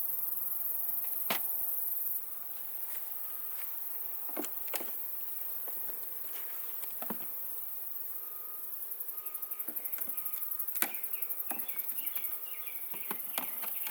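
Steady high-pitched insect chirping, pulsing rapidly for a few seconds past the middle, with scattered sharp clicks and knocks from hive frames and boxes being handled.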